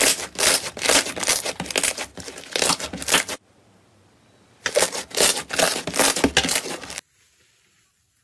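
Pink slime stretched and squeezed by hand, giving a dense run of small sticky clicks and pops, in two spells of about three and two and a half seconds with a short pause between. The sound stops about seven seconds in.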